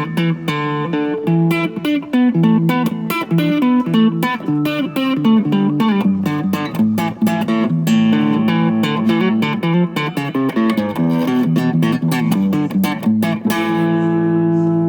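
Electric guitar played with a slap technique through a Xotic SP Compressor pedal: rapid, percussive plucked notes, with held notes ringing out near the end.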